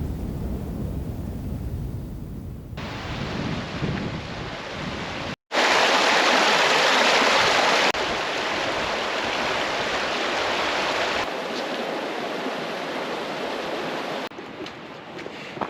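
Outdoor ambience in several abruptly cut pieces. It opens with wind rumbling on the microphone, then gives way to a steady hiss of rushing water. The water is loudest just after a brief dropout about five seconds in and steps down in level near the end.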